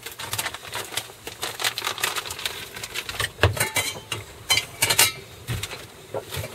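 Irregular clicks and taps of kitchen utensils and cookware being handled while bacon is cooked.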